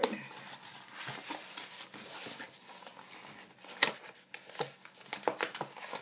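Packaging crinkling and clicking as a Pokémon collector's coin is worked out of it, with a few sharp clicks in the second half.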